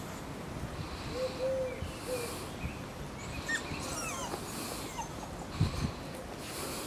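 A dove cooing: a low, steady hooting note a little after a second in, followed by a short second note. Small birds chirp briefly near the middle.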